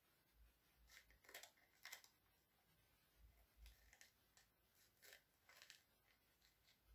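Faint, short cuts and scrapes of a small knife coring a fresh green chili pepper, a scatter of separate strokes.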